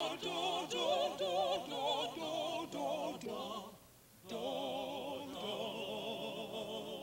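Four voices singing together in close harmony with heavy vibrato and no accompaniment. A sung phrase breaks off a little past halfway, and after a short pause the voices hold one long chord.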